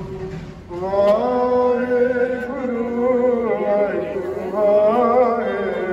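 A man's voice singing a slow chant in long, held, wavering notes, with a brief break about half a second in.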